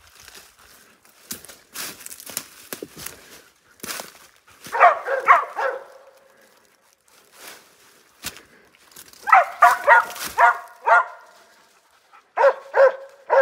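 West Siberian Laikas barking at a treed black bear: three bursts of sharp barks, a few at a time, the middle burst about six barks long. Before the first barks, footsteps crunch over dry leaves and loose rock.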